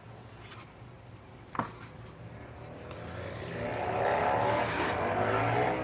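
A single sharp click, then an engine-like drone with a slowly shifting pitch that swells over the second half and holds, over a low steady hum.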